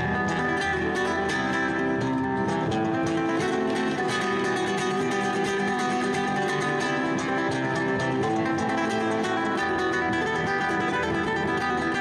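Background music played on acoustic guitar, with many quickly picked notes at a steady level.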